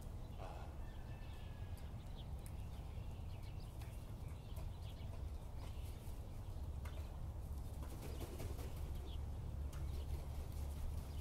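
Faint outdoor ambience: a steady low rumble with a few faint short bird calls and light clicks.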